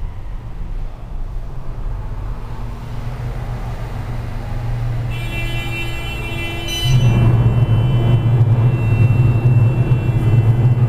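Otis elevator car running with a steady low rumble. About five seconds in, a thin high whine joins it, and a click about two seconds later is followed by a louder rumble as the car travels up one floor.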